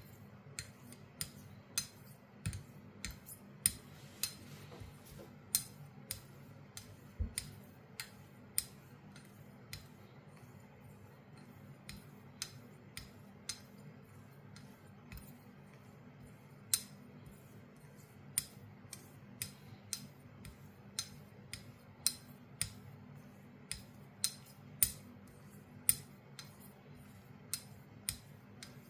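Sheffield straight razor being stroked back and forth on a sharpening surface, its spine clicking sharply each time the blade is flipped over, about two clicks a second.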